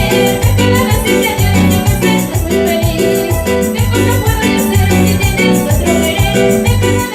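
Live dance music led by an electronic keyboard, over a steady bass line and drum beat, without singing.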